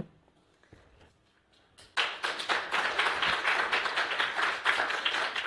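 Audience applauding, breaking out about two seconds in as a dense run of many hands clapping. A single short knock comes right at the start.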